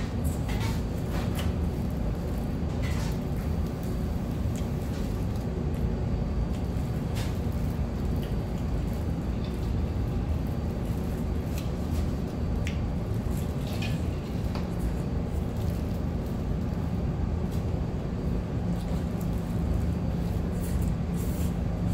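Eating fried chicken by hand in plastic gloves: scattered crisp crunches and clicks over a steady low rumble of room noise.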